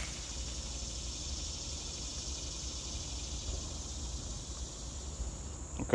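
Steady, high-pitched chirring of insects, with a low rumble underneath.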